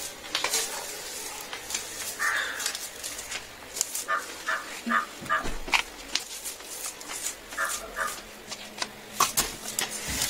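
Soft jhadu broom sweeping a tiled floor in quick, scratchy brush strokes. Short pitched calls come in runs of three or four, twice in the middle of the stretch.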